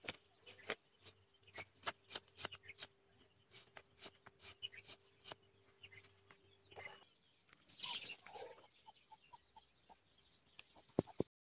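Knife slicing a small red onion on a wooden block: light, irregular taps of the blade on the wood, a few a second, stopping after about seven seconds. Faint bird calls follow, then two sharper knocks near the end.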